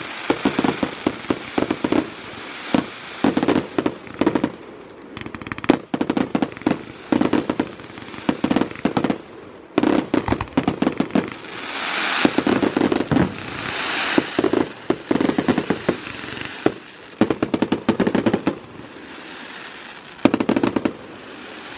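Fireworks going off: quick clusters of sharp bangs and pops from bursting aerial shells, with crackling and hissing between them.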